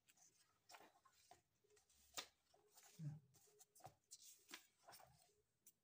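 Faint rustling and soft crackles of paper as printed book pages are turned by hand.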